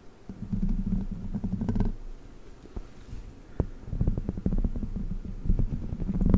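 A chicken-shaped dog toy squeezed and rubbed up close, giving a low rumbling crackle full of rapid tiny ticks. It comes in two stretches, the first in roughly the first two seconds and the second from about four seconds on.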